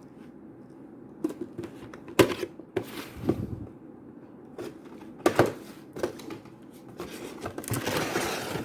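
Cardboard figure box being handled and opened: a scatter of sharp taps and clicks, then near the end about a second of rasping as sealing tape is peeled off.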